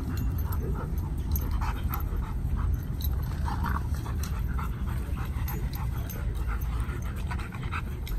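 A dog panting, over a steady low rumble.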